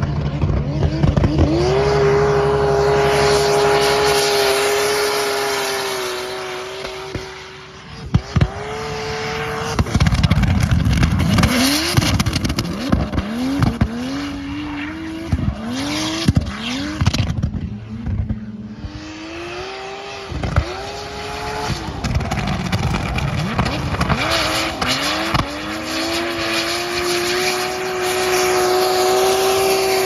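Toyota 1JZ inline-six in a BMW E30 drift car, held high in the revs through long slides while the tyres screech. In the middle the revs drop and climb back again and again in quick succession, then hold high again near the end.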